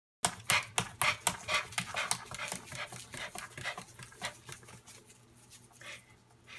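A Shiba Inu panting quickly, about four breaths a second, the breaths growing fainter over a few seconds.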